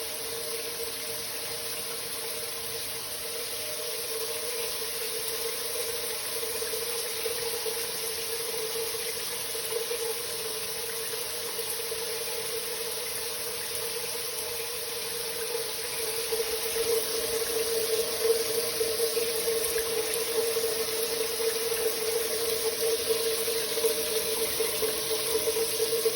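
Shower water running and spraying steadily, with a steady hum underneath. It grows louder and more uneven about two-thirds of the way through.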